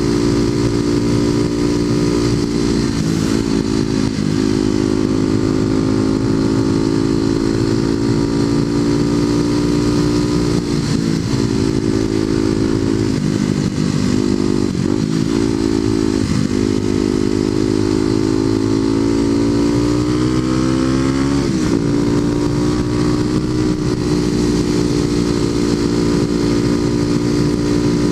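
Kawasaki KLX250SF's single-cylinder four-stroke engine running through a Muzzy aftermarket exhaust at a steady cruise, with a few brief dips in revs around the middle. About three quarters of the way through, the revs climb and then drop sharply.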